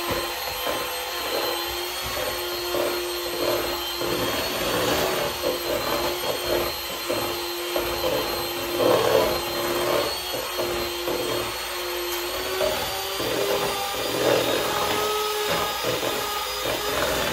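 Electric hand mixer running steadily, its beaters whisking a thick cream-cheese filling in a bowl. The motor hum steps up slightly in pitch about two-thirds of the way through.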